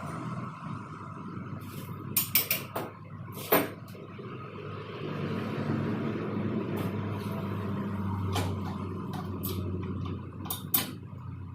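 Several sharp metal knocks and clanks, a quick cluster about two seconds in, a louder single one a second later and two more near the end, over a steady engine-like hum.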